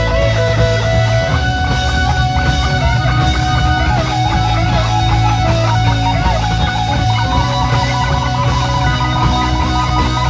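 Prog-rock band playing live, taken from a 1975 reel-to-reel tape: electric guitars over bass guitar and drums, with quick runs of notes above a steady bass.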